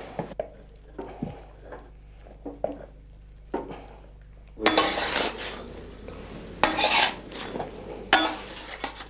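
A utensil clinking and scraping inside a copper pan of hot guirlache (caramelised sugar and toasted almonds). Just before halfway through come three longer scrapes as the sticky mass is scraped out of the pan onto the work table.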